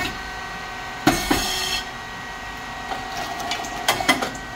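Rice cake popping machine running, with the steady hum of its hydraulic pump motor and fan. A short hiss comes about a second in, and a few sharp clicks and knocks come near the end.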